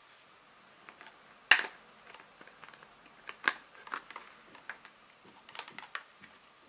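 A series of sharp clicks and light taps from small hard parts being handled: laptop RAM modules taken out and laid down during a memory swap. The loudest click comes about a second and a half in, with smaller ones after it.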